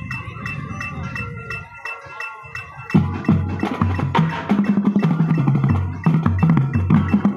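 Marching band drumline at rehearsal. Even ticking of about four clicks a second over held higher notes, then about three seconds in, tuned marching bass drums enter loudly, playing quick runs that step up and down in pitch with the other drums.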